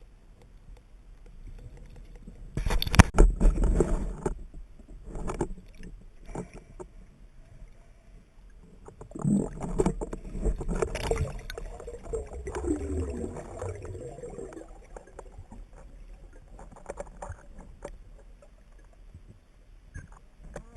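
Irregular bursts of water noise and knocks, loudest about three seconds in and again around ten seconds in, over a steady low rumble.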